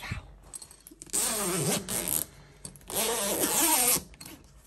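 Zipper on the mesh door of a soft-sided fabric dog crate (Maelson soft kennel) being pulled open in two long strokes, each about a second.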